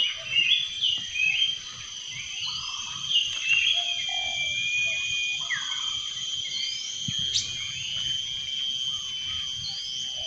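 Small birds chirping: a run of short chirps and quick rising and falling call notes, over a steady high-pitched whine.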